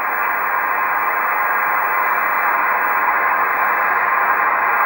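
Steady hiss and static from a President Madison CB radio's speaker on an open channel with no station transmitting, cut narrow to a telephone-like band by the receiver's filter.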